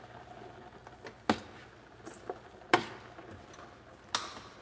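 A few sharp clicks and knocks of kitchen utensils and cookware, three of them louder and about a second and a half apart, the last the loudest.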